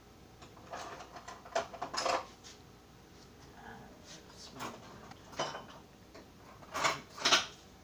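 Kitchen clatter of dishes and utensils: scattered clicks and clinks, a cluster about a second in and the loudest two sharp knocks near the end.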